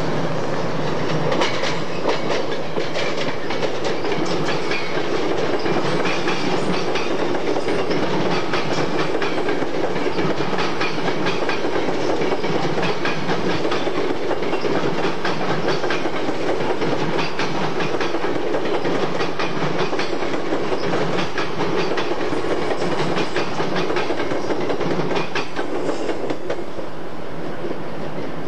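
A commuter train of electric multiple-unit cars passing, its wheels keeping up a steady run of clickety-clack over the rail joints. The sound eases slightly near the end as the last car goes by.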